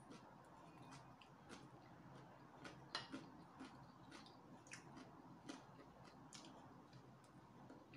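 Faint eating sounds: chewing, with small irregular clicks from the mouth and chopsticks, the loudest about three seconds in.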